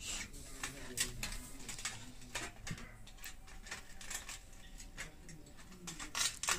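Irregular small clicks and scrapes of hand work as the heating element is pulled out of an electric heater's rod.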